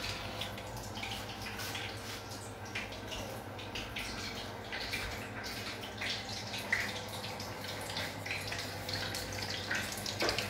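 Hot oil sizzling and crackling with irregular small pops as a rice arancina deep-fries in a pot, over a steady low hum.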